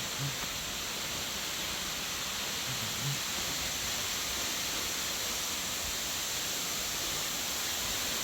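Steady rush of flowing water, an even hiss with no change in level.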